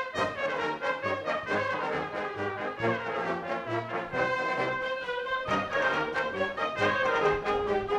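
Concert band playing a Spanish pasodoble, brass to the fore over woodwinds, with the low brass marking an even beat.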